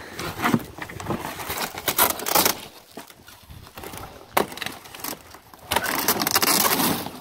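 Cardboard packaging being ripped and torn away and plastic stretch wrap crackling as it is cut and pulled off: a run of irregular rips and rustles with a few sharp knocks, and a longer tear near the end.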